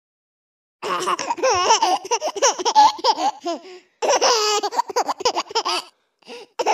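A baby giggling and laughing in high-pitched, quickly wavering bursts: two long bouts starting about a second in, then two short giggles near the end.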